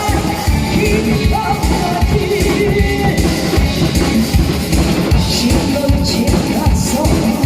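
Singing over a loud disco-style backing track with a steady drum beat.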